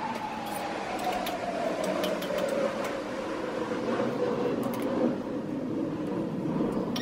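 Metal spoon stirring thick curry in a pot, with a few light clinks against the pot. Underneath runs a hiss and a steady whine that slowly falls in pitch.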